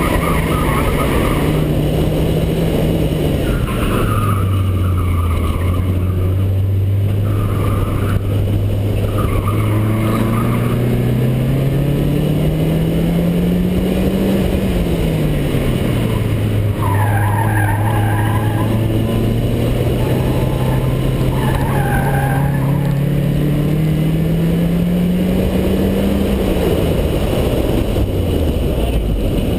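Car engine on an autocross run, its pitch climbing and dropping with the throttle. Short tire squeals come repeatedly as the car corners. Near the end the engine winds down as the car slows.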